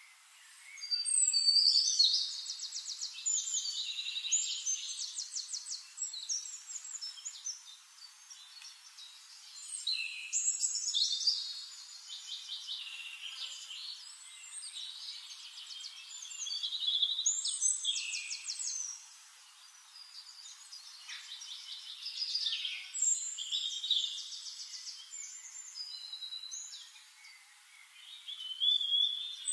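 A songbird singing long phrases of rapid high trills and chirps, louder in waves about every six seconds.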